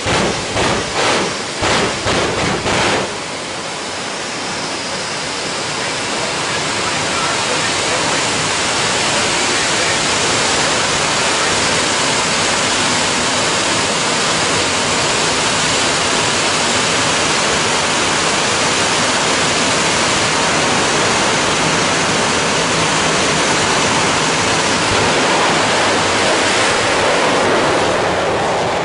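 Turbojet engine of a jet funny car: a quick run of about five pulses, then a steady loud rushing jet noise that swells near the end as the car launches on afterburner.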